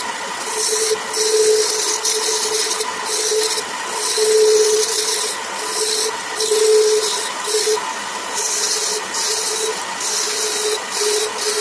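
Wood lathe running while a hand-held turning tool cuts the spinning wooden spindle. The high hiss of the cut comes and goes in short passes, roughly every second, over the lathe's steady hum.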